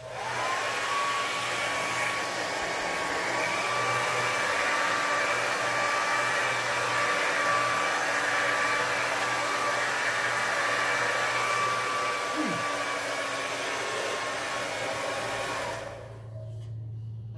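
Hand-held hair dryer blowing air across a small canvas of wet poured acrylic paint. It runs loud and steady with a whine, switches on at the start and winds down about a second before the end.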